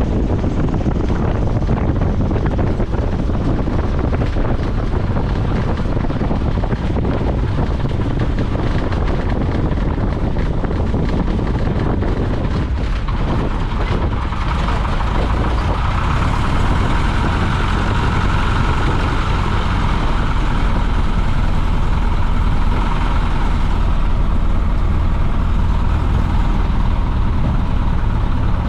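Piper J-3 Cub's small piston engine running steadily, heard from inside the cockpit, with wind and airflow noise over it. About halfway through the sound changes: a higher-pitched band comes up and the low engine hum steadies.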